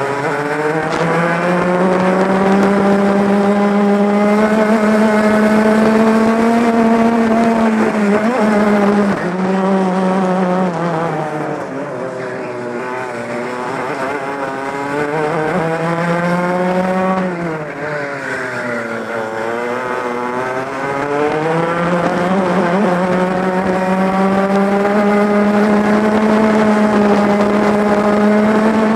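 Two-stroke racing kart engine heard close from the driver's seat at racing speed. It holds a high pitch on the straights and drops and rises again twice as the kart slows for corners and accelerates out.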